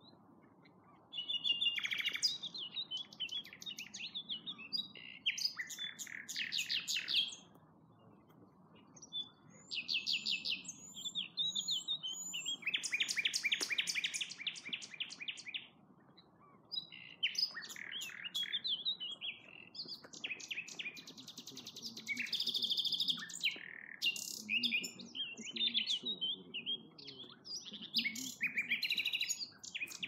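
Common nightingale singing: phrases of rapid repeated notes and trills, separated by pauses of a second or two.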